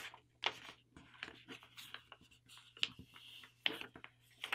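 A sheet of printer paper being handled and folded by hand into a paper airplane: a scattered series of short, faint paper rustles, crinkles and creasing strokes as the folded layers are flipped and pressed flat.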